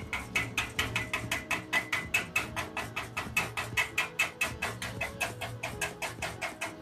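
Steel chipping hammer chipping slag off a fresh stick weld on thin square steel tube: quick, even metallic taps, about five a second.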